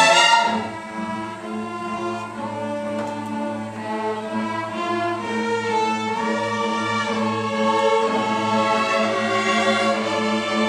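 String orchestra playing. A loud passage drops away about half a second in, giving way to a quieter section over a held low note, with higher string lines moving above it and slowly building in loudness.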